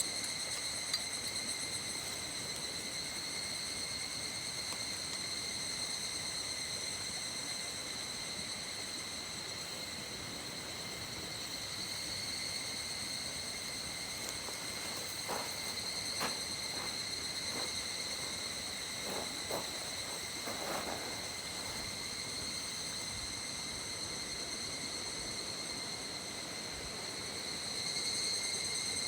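An insect giving a steady, unbroken high-pitched drone, over a faint background hiss. A few soft knocks come about halfway through.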